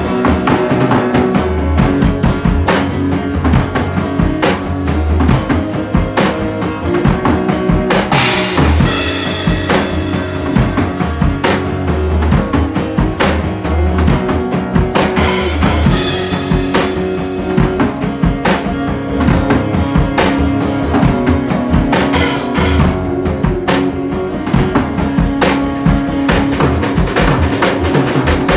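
Live jam of a drum kit and guitar played together in a room: a steady beat on kick and snare with rimshots, under sustained guitar notes.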